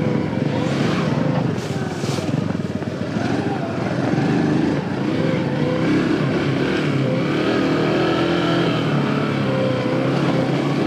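Small single-cylinder engine of a 115cc Aveta Ranger Cub Cross underbone motorcycle running while being ridden, its pitch rising and falling with the throttle.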